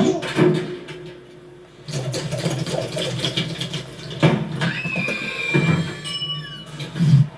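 Layered animated-film sound effects: a string of knocks and thumps over a low mechanical rumble, with a short whistling tone that slides and then holds about five seconds in.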